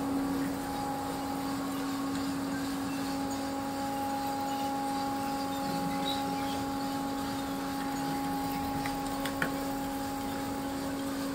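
A machine's motor humming steadily at one unchanging pitch, with a single short click about nine seconds in.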